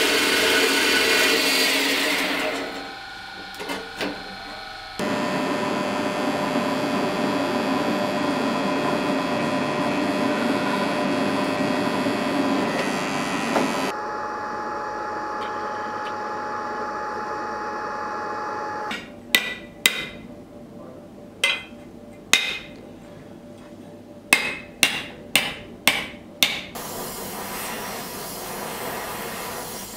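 A metal-cutting bandsaw running, with a short dip a few seconds in. Later come about a dozen sharp hammer blows on metal, in uneven groups, and then the steady hiss of a gas torch flame.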